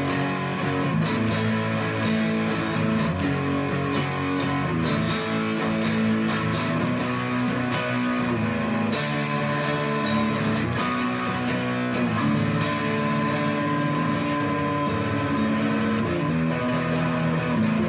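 Solid-body electric 12-string guitar playing a continuous passage of chords and picked notes, with the natural chorus-like shimmer of its paired octave strings.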